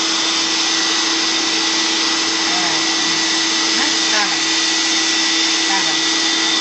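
Vacuum cleaner running steadily, its nozzle being drawn over a cat's fur, with a constant hum and hiss.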